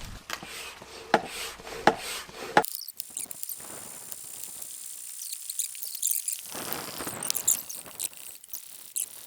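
Inflatable stand-up paddleboard being blown up with a hand pump: sharp clicks, then a steady high hiss of air, in short cut-together shots.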